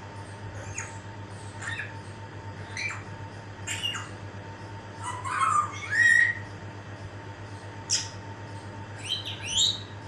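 African grey parrot calling: a string of short squawks and whistles, the loudest a whistle rising in pitch about five to six seconds in, and two more rising whistles near the end.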